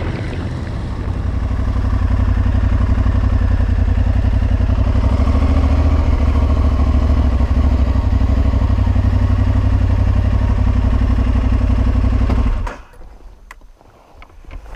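Aprilia Tuareg 660's parallel-twin engine running at a steady pace, then cutting off suddenly near the end, leaving only a few faint clicks.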